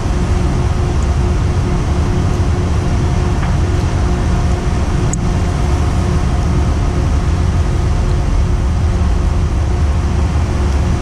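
Ship's engines and deck machinery running with a steady low rumble and a constant hum.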